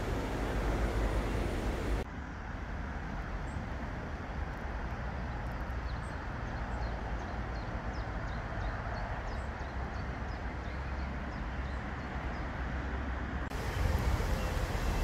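Steady rush of a shallow stream with wind buffeting the microphone. About two seconds in it drops abruptly to a quieter, duller rush with faint short bird chirps repeating for several seconds, then the louder water-and-wind noise returns near the end.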